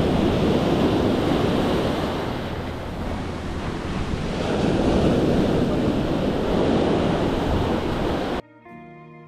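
Ocean surf washing up the beach through the shallows, swelling and easing as waves come in, with wind buffeting the microphone. Near the end it cuts off suddenly and quiet lo-fi music begins.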